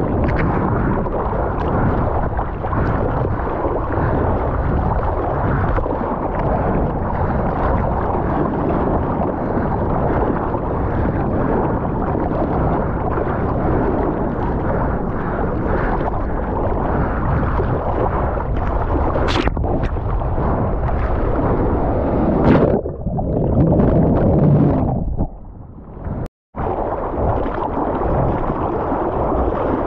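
Ocean water sloshing and splashing against a water-level action camera as a surfer paddles out: a steady wash with a few sharp splashes, and a short drop-out near the end.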